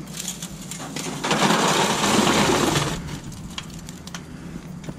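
Lit charcoal poured out of a chimney starter into an aluminium foil pan: a rush of clattering, crackling coals lasting about two seconds, starting a little over a second in. A few light ticks follow.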